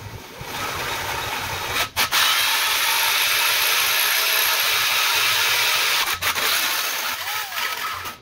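Tube notcher's spinning hole saw cutting a notch through a tube: a steady, loud grinding rasp that stops for a moment about two seconds in, dips again about six seconds in, and cuts off at the end.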